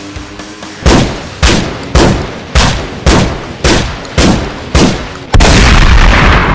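Loud closing music track: eight heavy, evenly spaced hits, a little under two a second, then a long sustained crash about five seconds in.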